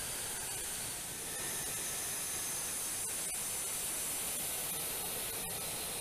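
Steady, even hiss, strongest in the high range, with no distinct tones or impacts.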